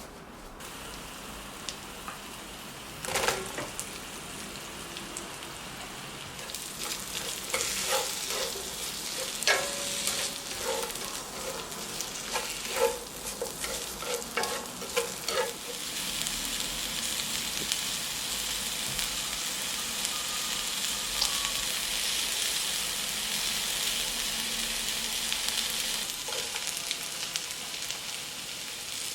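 Food sizzling in a hot pan as it is stir-fried, with a utensil knocking and scraping against the pan many times in the first half. After that the sizzling runs on steadily and a little louder.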